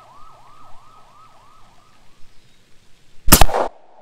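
A police-style siren yelping in quick rising-and-falling sweeps, fading out about halfway through. About three seconds in comes one very loud bang as the .357 Benjamin Bulldog air rifle fires and the plastic bottle, pressurized with air and filled with soap suds, bursts.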